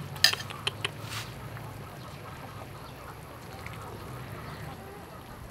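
A metal ladle clinks sharply against the pot and bowl several times in the first second while soup is ladled out, then quieter handling sounds.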